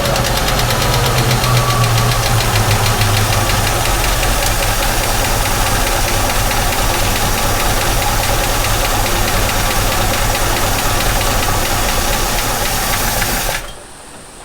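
1967 Ford Mustang engine running steadily just after starting from a no-start, then dying suddenly about a second before the end; the engine is cold and is thought still to need to warm up.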